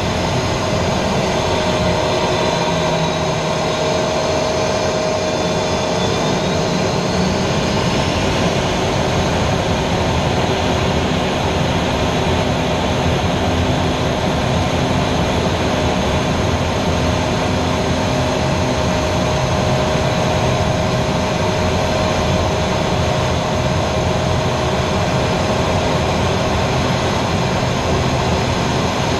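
Aero L-29 Delfín jet trainer's turbojet and airflow heard from inside the closed cockpit: a steady, loud engine and wind noise with a constant whine. A faint high whistle dips and then rises in pitch during the first several seconds.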